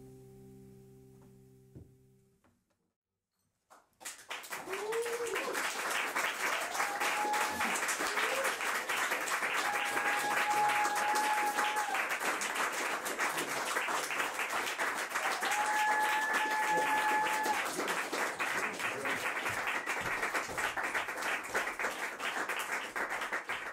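The last sustained notes of the music fade out in the first two seconds. After a short silence, about four seconds in, a small audience breaks into applause with a few cheers and drawn-out calls, and it carries on to the end.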